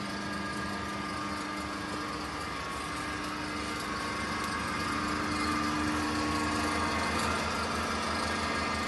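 Amada guillotine shear's electric motor running, a steady hum with a few held tones, a little louder for a few seconds in the middle.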